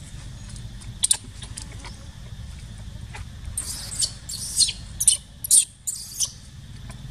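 Baby macaque giving short, high squeaks: a quick pair about a second in, then a run of several more from about three and a half to six seconds in.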